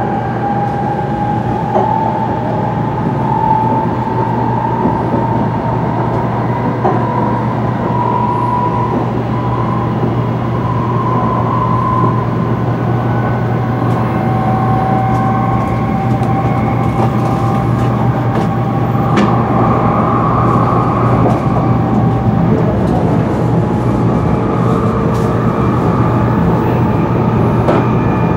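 Shinkansen bullet train running noise heard inside the passenger car as it picks up speed: a steady low hum and rumble, with a motor whine that rises slowly in pitch over the first half.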